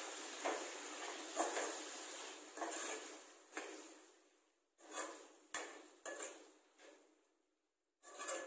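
Metal spoon stirring and scraping thick mutton pickle masala around a nonstick wok, in a series of short scrapes and light knocks with brief pauses. A faint sizzle from the still-hot pan fades out about four seconds in.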